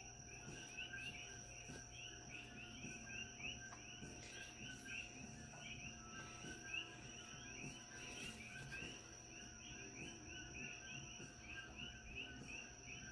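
Faint, rapid insect chirping that repeats evenly throughout, over a steady high-pitched whine.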